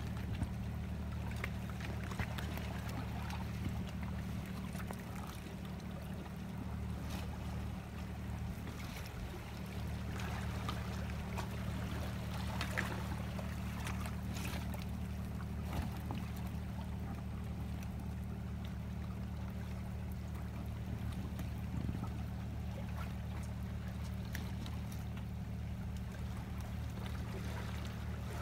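Steady low hum of an idling engine, with faint scattered clicks and a light trickle of water over it.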